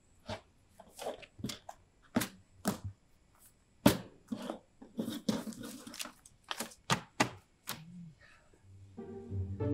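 A run of sharp, irregular clicks and knocks, about two a second. Music with low notes comes in near the end.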